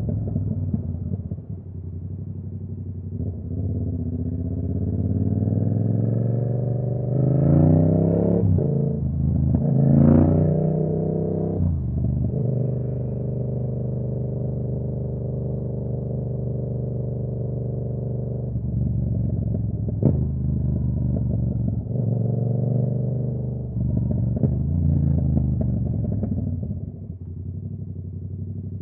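Yamaha R7's 689 cc parallel-twin engine riding along. It revs up sharply twice in quick succession around a third of the way in, then holds a steady cruise. A brief sharp crack comes about two-thirds of the way through, and the engine revs up and eases off again before dropping back near the end.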